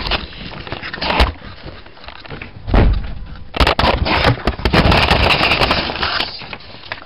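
Cardboard box, paper instruction sheet and wrapping of a toy being handled and unpacked: rustling and crinkling with a few knocks, crackling most densely through the second half.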